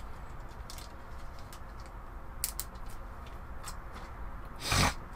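Faint handling sounds: a few light clicks and rustles, with one short, louder rustle close to the end.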